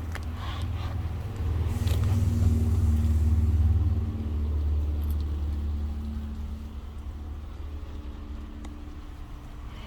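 A 1956 Continental Mark II's V8 engine running as the car drives. Its low rumble swells louder for a couple of seconds, then gradually fades.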